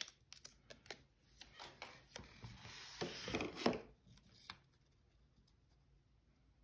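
Paper being handled: die-cut paper stickers and ephemera shuffled by hand with a few light taps, then a longer rustling slide of paper and journal pages, loudest about three seconds in, and one last tap.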